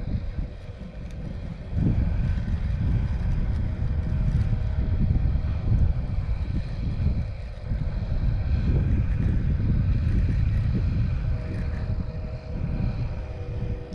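Wind buffeting the microphone: a ragged low rumble that gusts up about two seconds in and eases off near the end.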